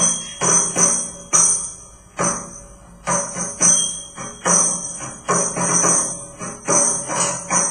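Homemade percussion played on household objects: a rhythm of jingling strokes, each with a low knock underneath, about two a second in an uneven pattern.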